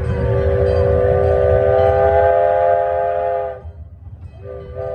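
Miniature steam locomotive's steam whistle blowing a long blast of several notes together, about three and a half seconds, then a second blast starting near the end, over the low rumble of the train running.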